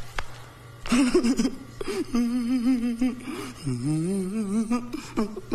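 A man's voice humming and whining on a wavering pitch, sliding up from low a little past the middle.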